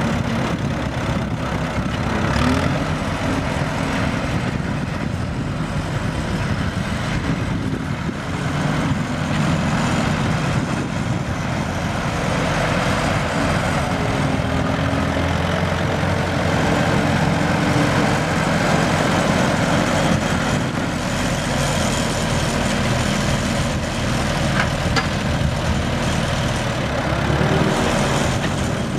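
1951 Allis-Chalmers WD tractor's four-cylinder gas engine running steadily as the tractor is driven, its note shifting a little now and then.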